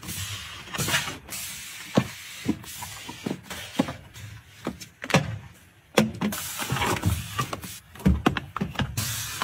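Hand-handling sounds: a quick run of knocks and clicks from hard items being picked up and set down, with rustling in between.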